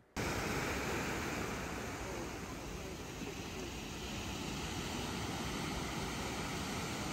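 Steady, even rushing outdoor noise that cuts in abruptly just after the start and holds without change, the kind made by surf or wind on the microphone.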